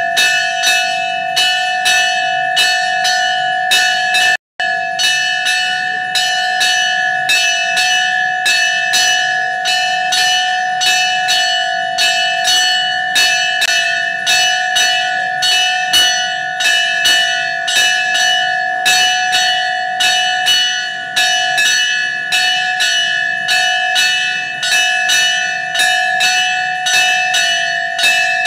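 Temple bell rung continuously during worship, struck about twice a second so each ring carries on under the next. The sound drops out for a moment about four and a half seconds in.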